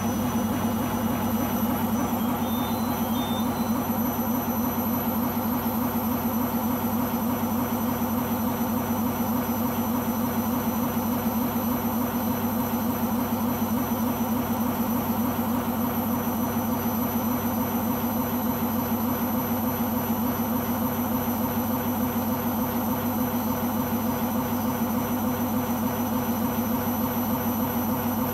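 Beko washing machine running with a loud, steady mechanical drone and a fast, even pulsing, which the owner thinks comes from the rubber behind the drum.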